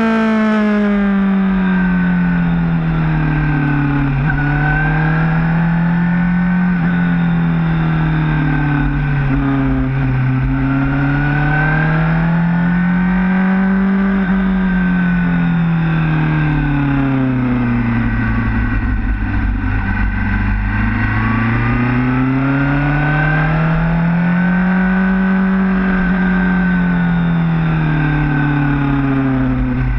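Motorcycle engine heard from on board the bike, its pitch swelling up and sinking back about every ten seconds as the rider accelerates out of corners and rolls off into the next, over a steady rumble of wind on the microphone.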